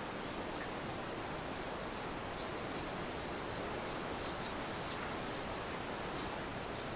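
Brush bristles stroking liquid finish onto a wooden gun stock: a run of short, soft scratchy strokes over a steady background hiss.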